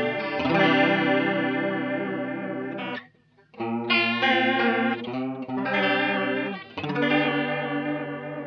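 Fender Telecaster played through a JHS Emperor chorus-vibrato pedal on its triangle waveform into an Orange TH30 amp: strummed chords ring out with a wavering, swirling pitch modulation. The sound breaks off briefly about three seconds in, and new chords are struck just after and again near seven seconds.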